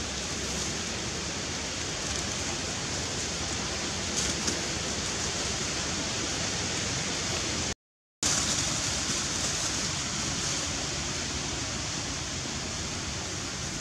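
Steady, even outdoor background hiss with no animal calls standing out. A few faint ticks come about four seconds in, and the sound cuts to silence for a moment a little past halfway.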